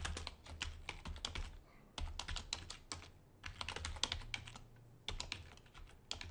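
Computer keyboard being typed on: short runs of quick key clicks with brief pauses between them.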